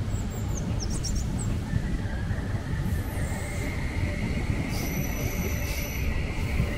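Electric passenger train running on the track: a steady low rumble with a high-pitched whine, and a few brief high-pitched chirps about a second in.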